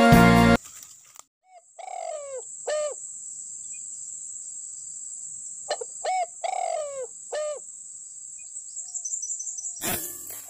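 Green pigeons (punay) giving whistled calls: about seven curved notes, mostly falling, in small clusters over a steady high insect drone. Background music cuts off in the first half-second, and a sharp click sounds near the end.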